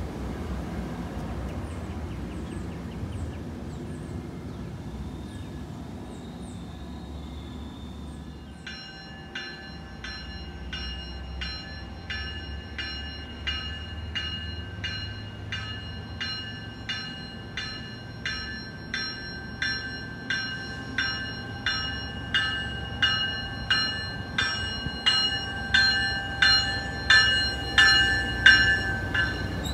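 Low rumble of a departing MBTA commuter train fading away, then the warning bell of an approaching MBTA push-pull train ringing in steady strokes, about three every two seconds, growing louder as the train nears the platform.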